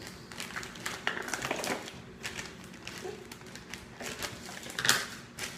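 A clear plastic bag crinkling and rustling as it is handled and rummaged through, with irregular small clicks and taps. The loudest rustle comes near the end.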